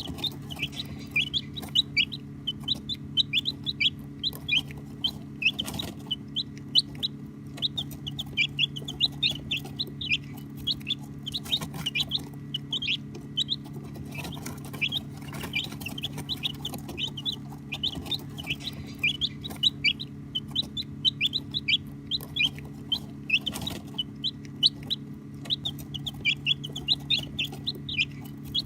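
A flock of baby chicks peeping continuously: many rapid, high-pitched chirps that fall in pitch, overlapping one another, over a steady low hum.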